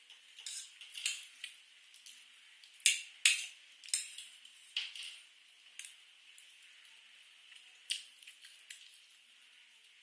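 Close-miked ASMR eating sounds of spicy noodles with french fries: irregular sharp clicks and short bursts of mouth and utensil noise, the loudest about three seconds in.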